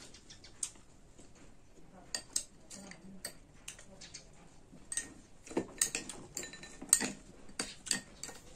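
Metal spoon clinking and scraping against small glass bowls while scooping and stirring: scattered light clicks that come more often in the last few seconds.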